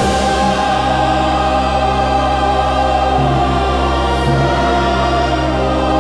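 Slow orchestral ambient music: sustained strings and a steady low drone under ethereal female vocals.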